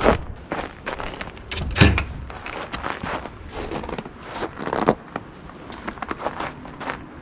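Footsteps in snow, with a heavy thump about two seconds in, then wood-and-metal knocks as a wooden-framed mesh rack is slid onto the runners of a wooden smoker cabinet.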